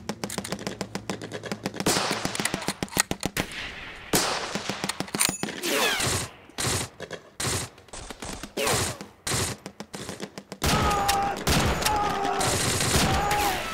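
Rapid bursts of automatic machine-gun fire, with short gaps between runs of shots. Near the end a man yells over the gunfire.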